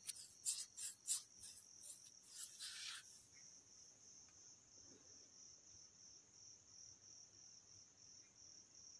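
A cricket chirping steadily in a regular pulsing rhythm, about two pulses a second, faint in the background. Over the first three seconds, irregular faint scratchy rustling sounds lie over it.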